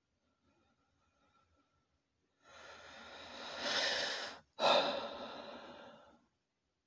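A man's deep breath close to the microphone: a long inhale that swells for about two seconds, a brief stop, then a strong sighing exhale that fades away.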